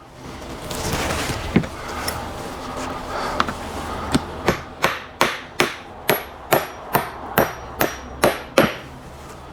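Hammer driving a nail into a wooden board: about a dozen quick, evenly spaced strikes with a metallic ring, after a few seconds of handling and a few light knocks.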